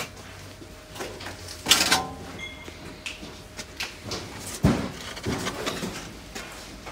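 Knocks and light clatter of framed pictures being leafed through and tipped forward in a stack, the loudest bumps at about two seconds and just before five seconds.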